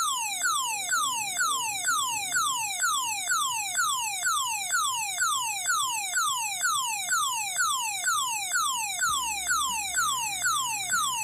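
Alarm tone from an M3766 tone-generator IC circuit played through a small loudspeaker, set to mode 1: a whistle that falls in pitch, repeating evenly about two and a half times a second.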